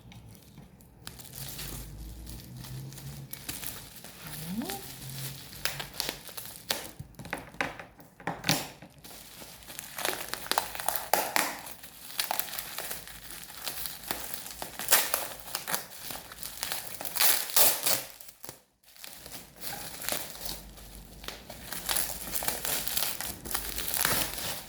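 Packaging being handled and opened, crinkling and rustling in irregular bursts, with a few louder crackles.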